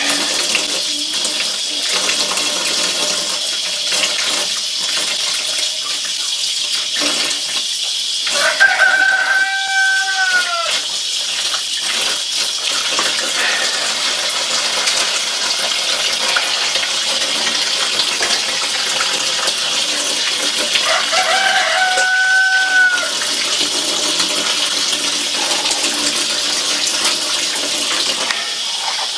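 Tap water runs steadily into a steel sink while a plucked chicken carcass is rinsed and handled under it. A rooster crows twice, about 9 seconds in and again about 21 seconds in; each crow lasts about two seconds and drops in pitch at the end.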